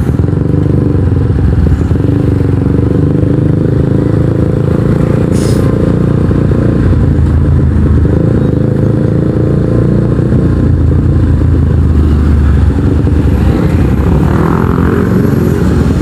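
Kawasaki NS150's single-cylinder engine running through an Akrapovic exhaust while riding, a steady low drone. There is one short click about five seconds in.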